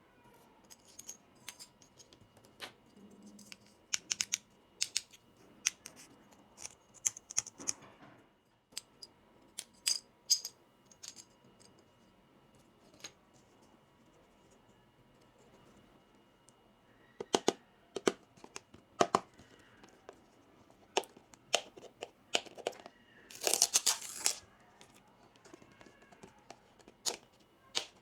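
Miniature plastic toy kitchen pieces and packaging being handled during an unboxing: scattered light clicks and taps, quiet for a few seconds in the middle. About three-quarters of the way through comes a short burst of packaging tearing and crinkling.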